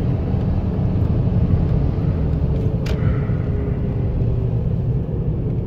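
Steady low road and engine rumble inside the cabin of a BMW with an M57 diesel cruising at highway speed, with one short click about three seconds in.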